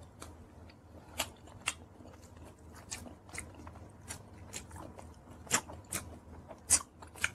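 Close-miked chewing of a mouthful of pizza: an irregular string of crunches and wet mouth clicks, with a few louder crunches between about five and a half and seven seconds in.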